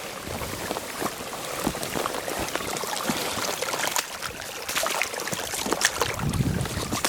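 Running water of a small mountain stream, with irregular footsteps and scattered knocks over wet ground.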